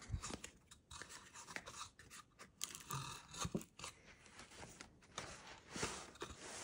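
A white paperboard gift box being opened and handled: card sliding and rubbing against card, with a series of light taps and scrapes.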